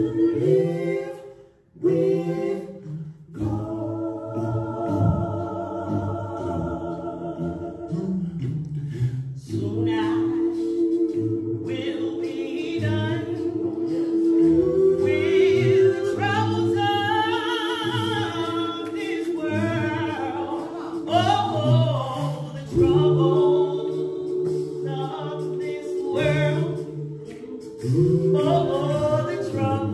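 A small mixed vocal group of one woman and several men singing together in harmony through hand-held microphones, holding long chords and moving from one to the next.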